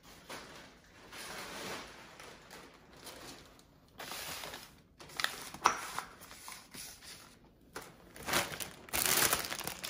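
Plastic produce and grocery bags crinkling and rustling as they are handled and moved on a counter, in irregular bursts, loudest near the end.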